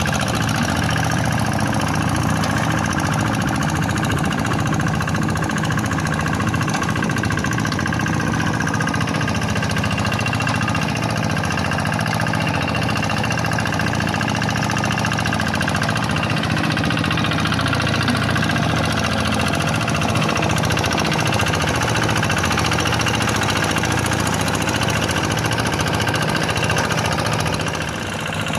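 Kubota single-cylinder diesel engine of a Quick G1000 hand tractor running steadily at high throttle while plowing a rice field, dipping briefly near the end.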